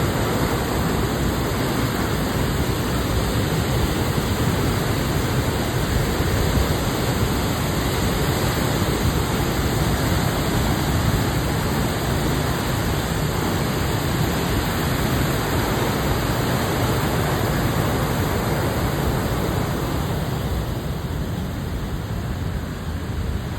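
Heavy water flow rushing through a river dam's open gates and churning below, a loud, steady noise. The dam has all four gates open to pass high water after heavy rain. The rush eases slightly and grows duller near the end.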